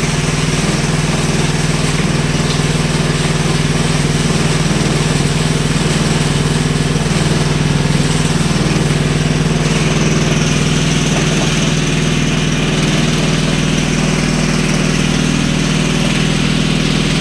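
Small engine-driven water pump running steadily at a constant speed, an even unbroken hum.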